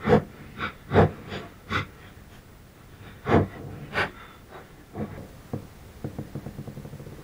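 A series of sharp clicks and taps from a small plastic compressor start relay being handled in the hand, then fainter quick ticking toward the end.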